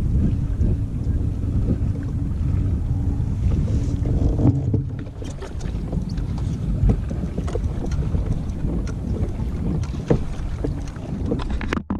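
Wind buffeting the microphone over choppy water lapping against a kayak's hull, a steady low rumble. From about halfway in, scattered small ticks and knocks; the sound cuts off abruptly just before the end.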